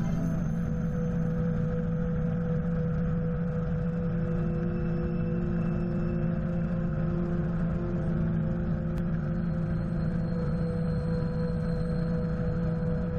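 Helicopter in cruise flight, engine and rotor noise picked up by a camera mounted on the outside of its nose: a steady drone with a strong low hum and a few steady higher tones.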